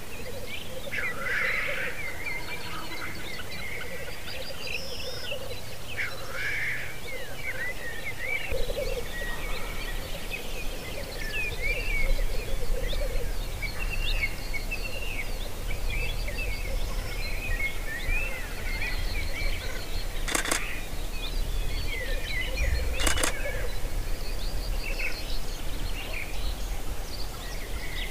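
Black grouse lekking: the males' continuous low bubbling coo, with many smaller birds chirping and trilling higher above it. Wind rumbles on the microphone, and there are two brief sharp noises about two-thirds of the way through.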